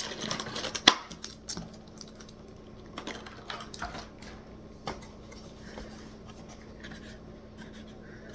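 Hands working at product packaging to free a light-switch wall plate: scattered clicks, taps and scratches, the sharpest click about a second in, then lighter irregular ticks.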